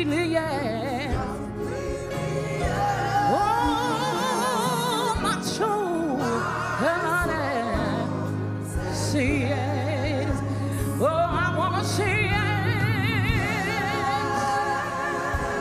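Gospel music with singing: a voice holding long notes with a wide vibrato over sustained low accompaniment.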